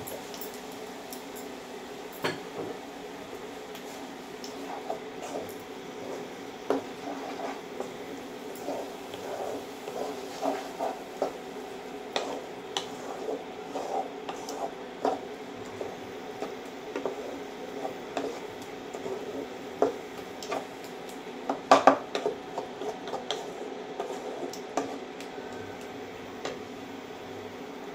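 Wooden spatula stirring and scraping thick masala with chopped coriander in a nonstick kadai, with many short knocks and clicks against the pan, the loudest about 22 seconds in. A steady hum sits underneath.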